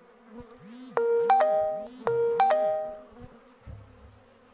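A three-note electronic chime, like a doorbell, played twice in a row, over the steady buzzing of honeybees whose hum dips and rises in pitch as they fly close.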